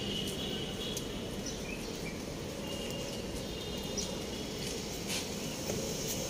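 Outdoor ambience: a steady low background rumble with faint, scattered bird chirps.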